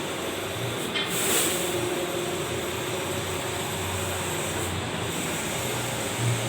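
Allwin 512i large-format printer running mid-print, a steady mechanical noise with a brief louder hiss about a second in.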